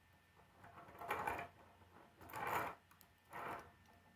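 K'nex plastic parts clicking and scraping as they are pushed and fitted together by hand: three short bursts, each about a third of a second long.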